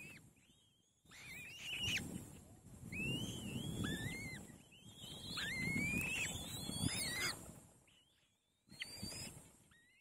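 Kite nestlings giving thin, rising, wavering whistled begging calls with a wheezy, rasping edge while being fed, in about five bouts with short pauses between.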